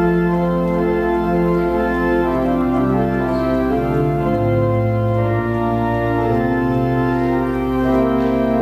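Organ music: sustained chords held over a slowly moving bass line.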